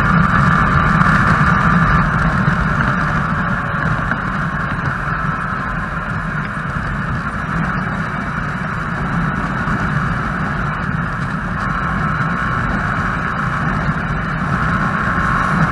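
Yamaha YZF-R15 sport bike's single-cylinder engine running steadily on the move. It is a little quieter in the middle and picks up again near the end.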